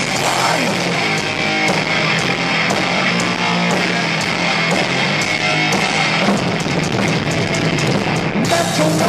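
Heavy metal band playing live: loud distorted electric guitars, bass and drums.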